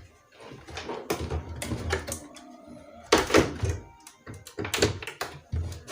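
Irregular knocks, clunks and clicks of hands handling parts of a CRT television and its speaker during repair, with the loudest clunk about three seconds in.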